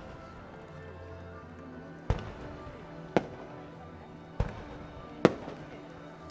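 Fireworks going off with four sharp bangs, about a second apart, the last the loudest, over the music played with the show.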